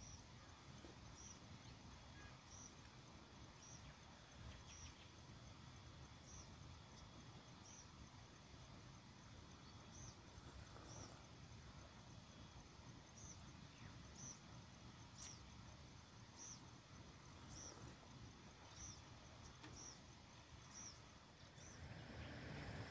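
Faint night insect chirping, a short high-pitched chirp repeated about once a second over a low steady background noise. A single sharp click sounds about two-thirds of the way through, and a louder hiss rises just before the end.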